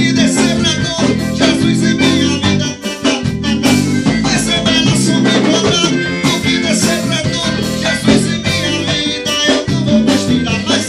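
A band playing upbeat forró music, with drum kit, congas and bass guitar over a steady beat.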